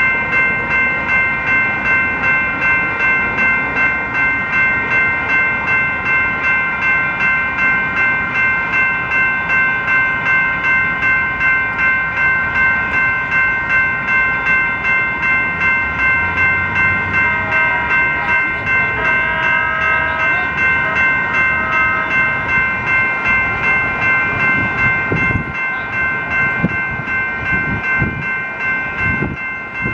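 Several Type 2 electronic railroad crossing bells (General Signals and Western Cullen Hayes) ring together in a rapid, steady ding, the warning that the crossing is active. A horn sounds in a few short blasts around the middle. Near the end a light-rail trolley train rumbles and clatters through the crossing.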